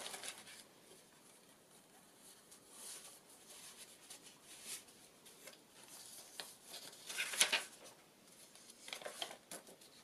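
Paper pages of a handmade junk journal being turned and handled: soft rustling, with one louder page swish about seven and a half seconds in and a few light ticks near the end.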